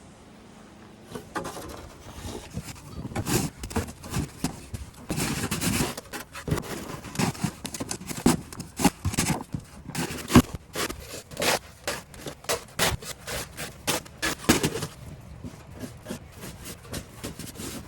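Crunching and scraping in snow, a long irregular run of short strokes that starts about a second in and eases off near the end.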